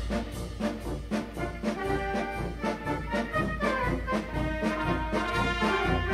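Brass band playing a march: a brass melody over a steady marching beat.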